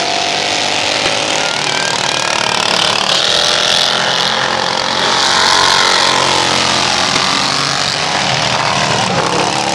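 Racing lawn mower engines running loud at speed as two mowers pass, their pitch rising and falling through the middle.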